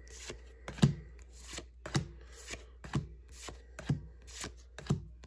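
Pokémon trading cards being flipped one by one from the front of a hand-held stack to the back. A sharp tap comes about once a second, with a softer card slide in between.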